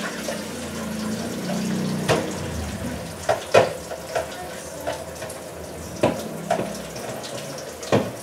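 Chicken simmering in a covered frying pan, a steady watery hiss and bubbling. Several sharp clinks and knocks sound over it.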